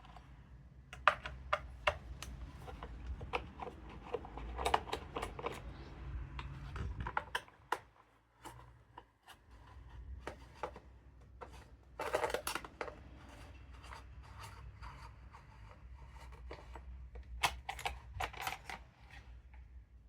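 Taking the top cover off an old Husqvarna Rancher 50 two-stroke chainsaw by hand: scattered clicks, scrapes and rubs of tools and plastic parts, with a louder clatter about twelve seconds in.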